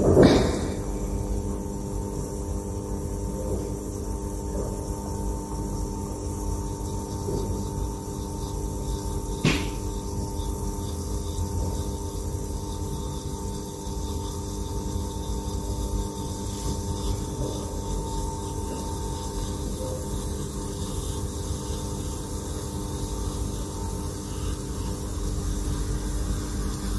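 Steady electrical and fan hum of a running laboratory muffle furnace heating at about 500 °C, several held tones over a low rumble. A sharp knock sounds right at the start and a smaller one about nine and a half seconds in.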